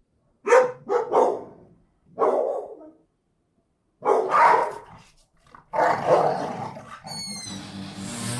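A dog barking: five or six separate barks, some short and some drawn out, with silent gaps between them. Near the end a different, steady sound begins.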